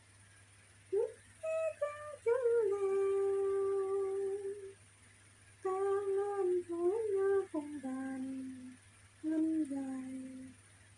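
A woman humming a slow melody to herself in long held notes, breaking off briefly near the middle and resuming on lower notes.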